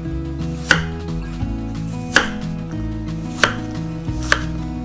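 Chef's knife chopping peeled apple on a wooden cutting board: four sharp knife strikes on the board, spaced a second or so apart, over soft background music.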